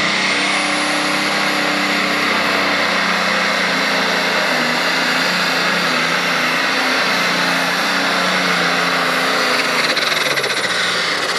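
John Deere 6030 Pro Stock pulling tractor's diesel engine running flat out under full load as it drags the weighted pulling sled, loud and steady, with a high whine over it that falls away near the end.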